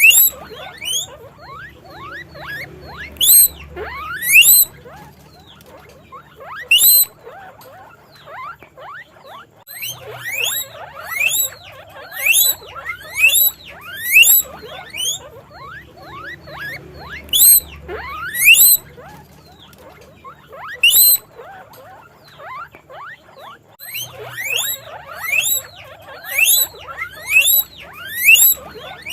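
Guinea pigs wheeking: many short, high squeals that each sweep sharply upward in pitch, coming in quick clusters separated by brief pauses.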